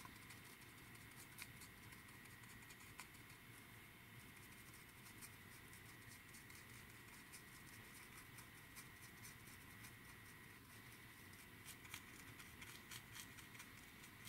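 Near silence: faint soft ticks and scratches of a small paintbrush dabbing chipping paint onto a plastic model part, a little more frequent near the end, over a faint steady high tone.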